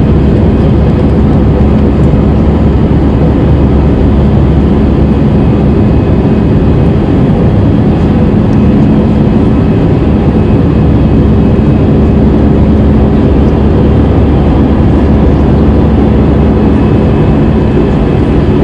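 Steady drone of an Airbus A319's jet engines heard inside the passenger cabin, with a constant hum running through it.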